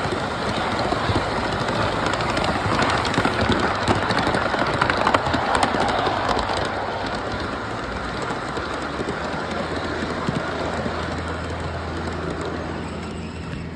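Ridable live-steam miniature train rolling along its track, with wheel clatter and rapid clicking over the rail joints against a dense rushing noise. A low steady hum comes in about two-thirds of the way through.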